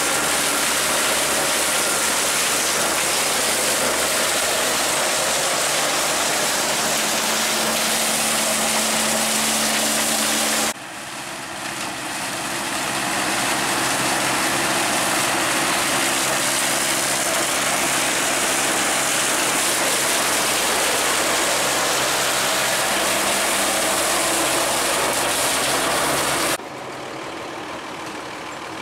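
Vintage tractor engine running steadily with a hum and a broad hiss over it. The sound drops abruptly about ten seconds in, builds back up over a few seconds, then drops again abruptly near the end.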